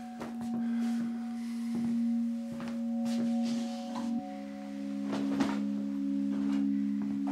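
A low, sustained drone of held notes that moves to a new chord about four seconds in, under short rustles and knocks of clothing and a bag being handled and footsteps.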